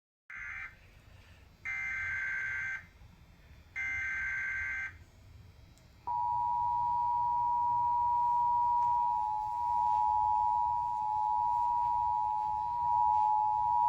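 Emergency Alert System header: three short bursts of SAME digital data tones, a rapid high warble, followed about a second later by the EAS two-tone attention signal, a steady dual tone (853 and 960 Hz) held for about eight seconds. Together they announce an emergency alert broadcast, here a severe thunderstorm warning.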